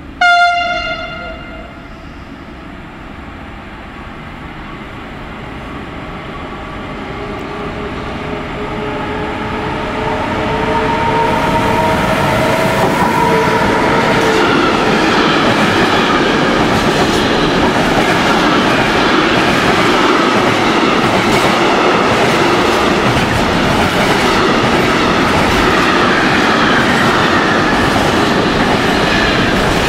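Electric freight locomotive sounds a short horn blast, then approaches with a rising rumble and a slightly falling whine as it goes by. A long container freight train follows, its wagon wheels clattering steadily over the rail joints.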